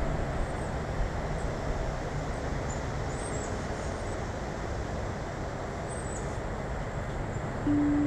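Small birds giving short, high chirps every second or so over steady background noise. Music starts near the end.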